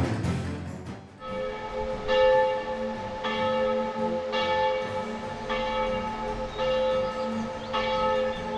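A church bell tolling, struck about once a second, each stroke ringing on into the next. It starts about a second in, as music with a drum stops.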